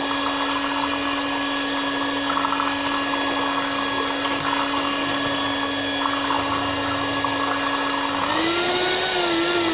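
Electric hand mixer running steadily, its beaters churning thick cold-process soap batter in a bowl. Its motor hum holds one pitch, then rises and wavers about eight seconds in.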